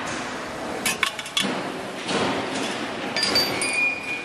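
Metal clinks and taps from a spoked motorcycle wheel being trued by hand on a truing stand, with a cluster of sharp clicks about a second in and a short high metallic ring near the end, over steady workshop noise.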